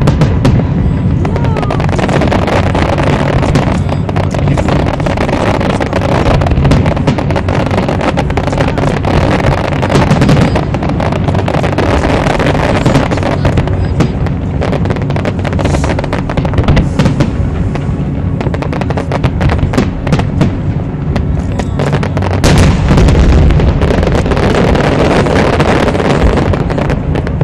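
Aerial fireworks display: a dense, continuous barrage of shell bursts and crackling, with an especially heavy volley of booms about 22 seconds in.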